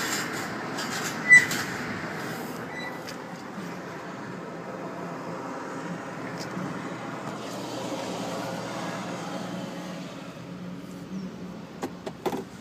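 Minivan being backed down off a car trailer, an engine running steadily throughout. A single heavy thump comes about a second and a half in, and a few sharp clicks near the end.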